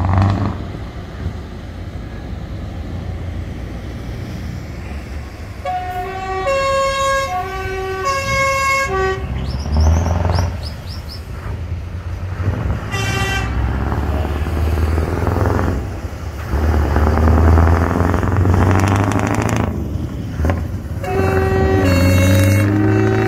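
Scania R620's V8 diesel running through an open straight-through exhaust, a deep rumble that swells as the truck drives past and climbs in pitch near the end as it accelerates. Air horns sound over it in repeated blasts that alternate between two notes, about six and eight seconds in, again around thirteen seconds and near the end.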